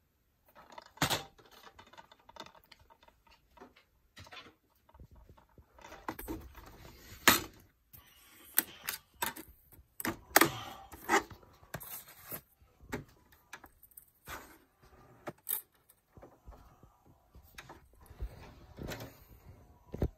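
Irregular plastic clicks, snaps and knocks from a DVD case being handled and a disc being loaded into a DVD player. The loudest snaps come about seven and ten seconds in.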